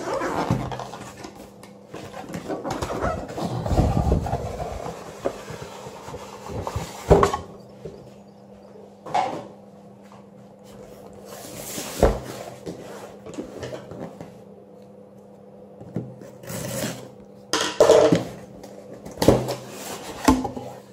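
A cardboard box being handled on a wooden table: a stretch of scraping and rustling as it slides out of its sleeve, then a series of separate knocks and thuds as it is set down and its lid and flaps are opened.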